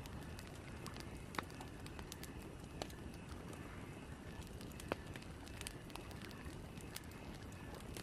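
Campfire ambience: a faint, steady hiss of burning wood with scattered sharp crackling pops, the clearest about one and a half, three and five seconds in.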